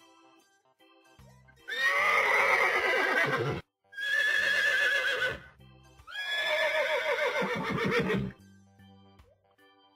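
A horse whinnying three times back to back, each call one to two seconds long, starting high and falling away with a quavering end. Soft background music plays underneath.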